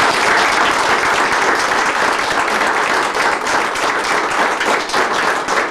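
A small group of people applauding, clapping their hands.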